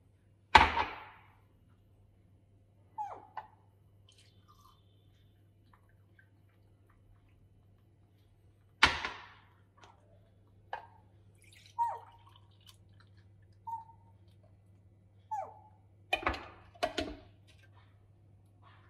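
Scattered knocks and clinks of glasses, a glass jug and plastic citrus-juicer parts being handled and set down on a hard kitchen counter. There is a loud clack about half a second in and another about nine seconds in, short ringing clinks between, and a quick pair of knocks near the end, over a faint steady low hum.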